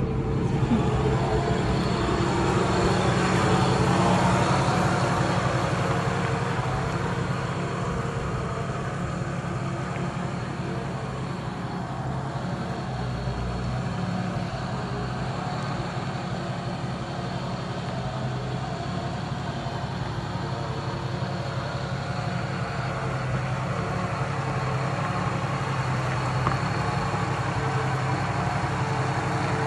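Jeep Cherokee XJ's engine running at low speed with a steady low hum as it creeps down a rough dirt track towing a small caravan.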